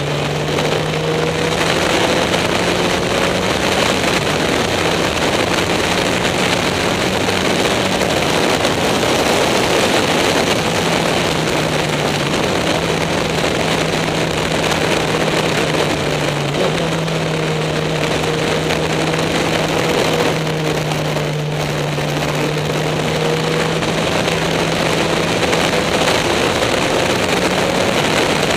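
Onboard sound of a Caterham SP/300.R sports-racing car lapping a track. The engine runs at speed with a fairly steady note that steps and glides in pitch a few times, under a continuous rush of wind in the open cockpit.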